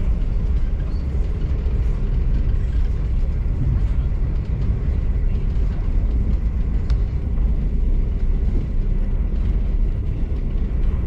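V/Line passenger train running along the track, heard from inside the carriage: a steady low rumble with no distinct knocks or changes.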